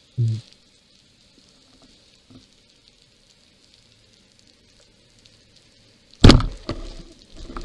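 Roller speargun shot underwater: a sudden loud crack with a ringing, fading tail about six seconds in, the spear fired at a dentex. Before it, a short low thump near the start and faint steady underwater hiss.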